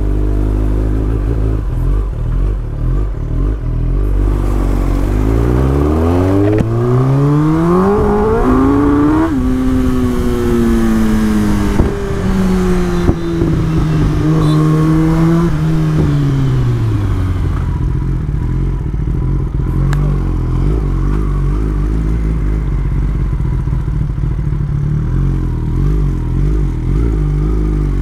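Kawasaki ZX-10R's inline-four engine running low, then pulling away with its pitch rising from about six seconds in. Near nine seconds the note drops at a gear change and eases down over the next several seconds, then settles into steady low running.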